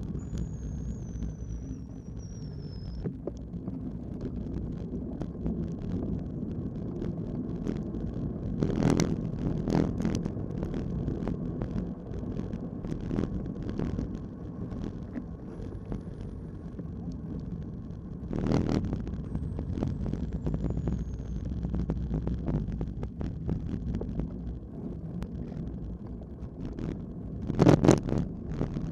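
Ride noise from a bicycle-mounted camera: wind rushing on the microphone and tyres hissing on a wet road, with scattered knocks and rattles from bumps. There are three louder bursts of noise, the loudest near the end.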